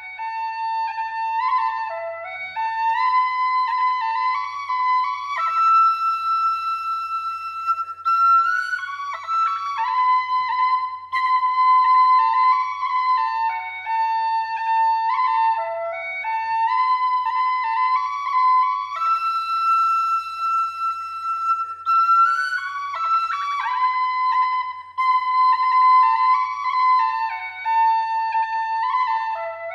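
Background music: a solo flute-like wind instrument playing a flowing melody, with one phrase recurring.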